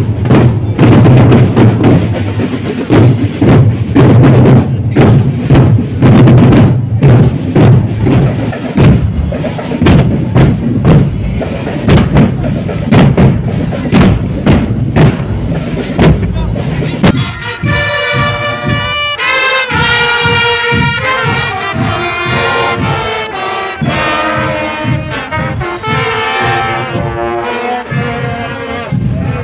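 Marching drum corps playing outdoors. For about the first seventeen seconds the drumline plays a dense rhythmic cadence on snare and bass drums, with heavy booming bass drum beats. Then the brass section comes in with a melody on trumpets and sousaphones over lighter drumming.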